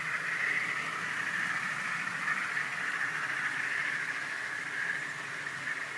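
OO gauge model trains running on a garden layout: a steady high whine from the locomotive motors over the rolling of wheels on track.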